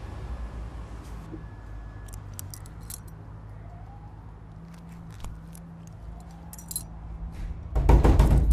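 Small metallic clinks and jingles of a belt buckle being unfastened, over a low steady hum. A sudden loud banging starts near the end.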